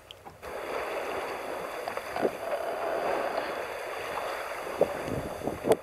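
Water hissing and rushing along the hull of a sailing yacht moving under sail at about 5 knots, with a few faint clicks and a sharper tick near the end.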